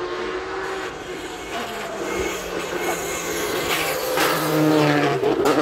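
Rally car at full speed on a tarmac stage, its engine note rising and growing louder as it approaches, then passing close with a sudden drop in pitch near the end.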